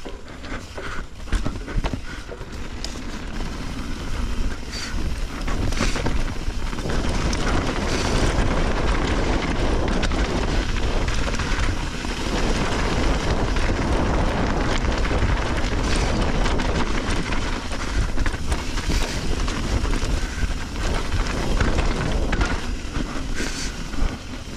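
Wind rushing over the microphone and tyre noise as a mountain bike rides fast down a dirt trail, with scattered clicks and knocks from the bike. The rush gets louder a few seconds in and then stays up.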